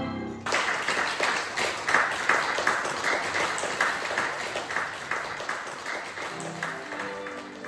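Audience applauding as a string ensemble finishes a piece. The clapping starts about half a second in and dies away near the end as the strings start playing again.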